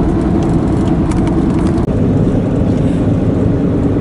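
Car engine and tyre noise heard from inside the cabin while driving on the open road: a steady low drone whose tone changes abruptly a little before halfway through.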